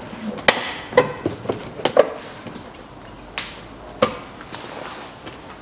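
Sharp plastic clicks and knocks as a tool pries the push-in clips out of a plastic wheel-arch liner: a quick run of them in the first two seconds, then two more a little later.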